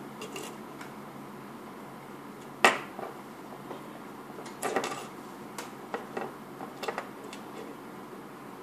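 Handling noise from fingers working monofilament fishing line and a metal jig lure: one sharp click about two and a half seconds in, a short cluster of clicks near the middle, then a few scattered light ticks over a steady low hiss.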